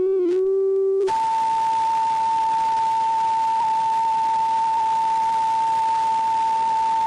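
A buzzy electronic tone with overtones, wavering in pitch, switches about a second in to a single steady higher tone over a hiss of static, like a broadcast off-air or alert tone.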